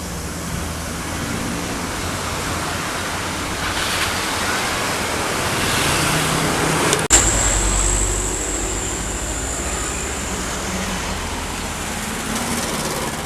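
Road traffic passing: engines and tyre noise of vehicles going by. About seven seconds in there is a single sharp crack, followed by a heavier low rumble and a thin high tone that fades over a few seconds.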